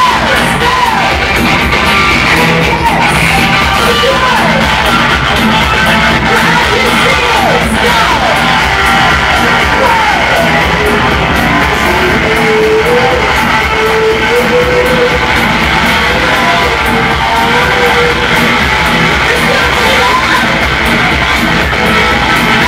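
Live rock band playing loudly: electric guitar and bass guitar, with a woman singing.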